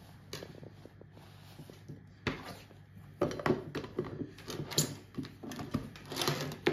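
Plastic lid being fitted and pressed down onto a glass food-storage container: a single knock about two seconds in, then a quick run of clicks and small knocks that grows louder toward the end.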